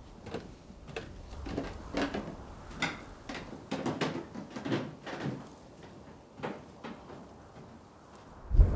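Footsteps climbing wooden stairs: irregular knocks about one or two a second, growing fainter and stopping after about seven seconds. A loud low rumble sets in right at the end.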